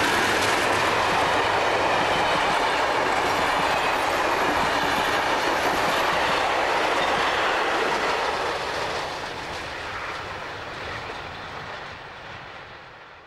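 A passenger train passing close by: two 44 class diesel locomotives, then carriages, the wheels clattering on the rails. The sound stays steady, then fades from about eight seconds in as the train draws away.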